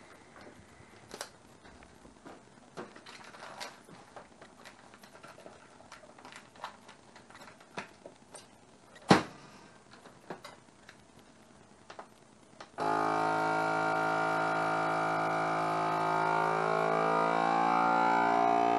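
Countertop vacuum sealer sealing a bag of raw chicken fillet: handling clicks and a sharp click as the lid is latched about 9 s in. About 13 s in the vacuum pump starts suddenly and runs with a steady hum, its pitch shifting a little as the air is drawn out of the bag.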